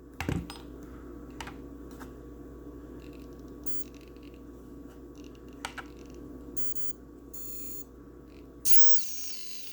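Brushless motor of a small combat robot driven by a freshly fitted Afro ESC: a click on power-up, then a steady electrical hum with short beeps, and a louder burst of whirring tones near the end as the motor is driven.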